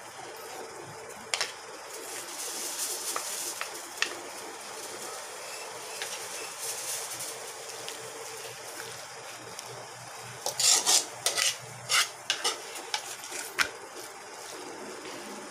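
A metal spoon and a wooden spatula scraping and clinking against a metal cooking pan as thick palabok sauce is scooped out of it, with a quick run of louder clinks about ten seconds in.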